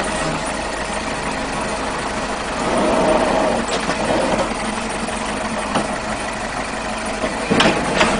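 Backhoe loader's diesel engine running steadily while the machine works its front loader bucket, with a couple of sharp knocks near the end.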